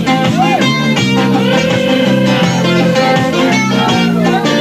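A small band playing live, with guitar to the fore: bending notes and a long held note near the middle over a steady low bass line.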